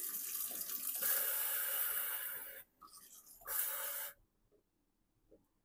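Kitchen faucet with a pull-out spout running water for about two and a half seconds, then shut off, with a second short run of water about three and a half seconds in.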